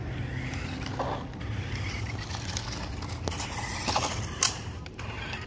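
Small battery-powered RC car with one rear motor driving over rough asphalt: a steady low rumble with a series of sharp clicks and knocks, thickest a little before the end.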